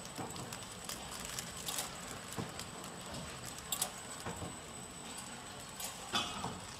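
Horizontal flow wrap packaging machine running: a steady mechanical hum with a thin, high constant whine, broken by irregular clicks and clacks.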